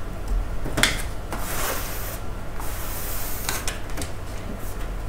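Handling noises on a stainless-steel worktable: two short knocks, about a second in and again near the end, with stretches of rustling between them, over a steady low hum.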